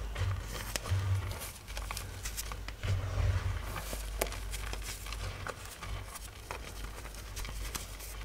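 Soft, powdery chalk blocks being crushed and crumbled, giving scattered crisp crunches and crackles over a low rumble.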